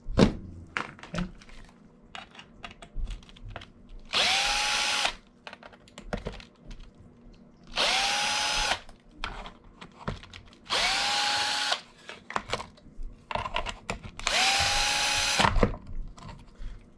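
Handheld electric drill-driver with a hex bit backing screws out of an R/C buggy's metal chassis plate: four short runs of about a second each, the motor whine rising quickly and then holding steady. Small clicks and taps of handling the screws and parts come between the runs.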